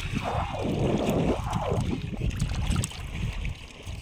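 Wind buffeting the microphone over sloshing water, with two brief rushing swells of water noise in the first two seconds.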